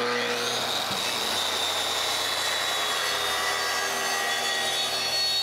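Makita SP6000J plunge track saw with a 6.5-inch blade cutting steadily through a sheet of plywood along its guide rail: a steady high motor whine over dense sawing noise.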